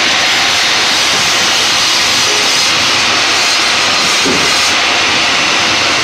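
Large log band sawmill running, a loud steady mechanical din with a strong hiss.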